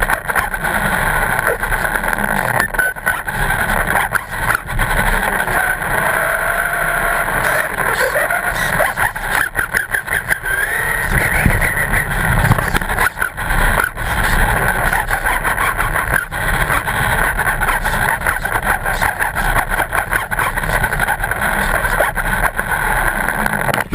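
Car engine running steadily at low speed, picked up by a camera mounted low on the moving car, mixed with rumble and irregular crackling from wind and road.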